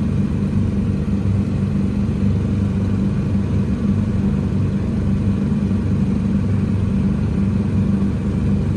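Electric Autopia ride car driving along its track: a steady low motor hum over road rumble, even throughout.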